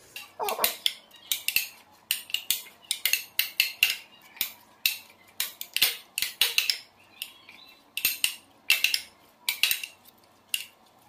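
Metal spoon stirring chopped fruit into yogurt and cream in a glass dish: a quick, irregular run of clinks and scrapes of the spoon against the glass.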